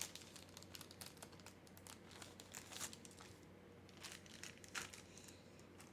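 Faint crinkling and tearing of a trading card pack's wrapper being opened, in scattered short rustles and ticks.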